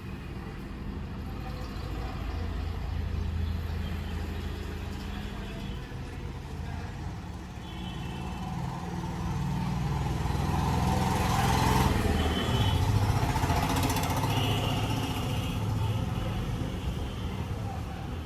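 A motor vehicle engine running with a steady low hum, growing louder to a peak about two-thirds of the way through and then easing off.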